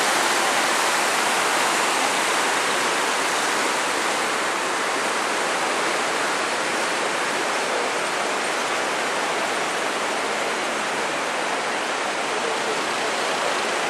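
Steady rushing of the Gave de Pau river in flood, fast white water swollen by snowmelt and recent rain. It is a little louder for the first few seconds, then holds even.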